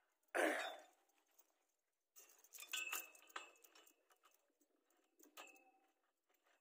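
A short sharp scraping burst about half a second in, then a run of light metallic clinks, a few of them ringing briefly.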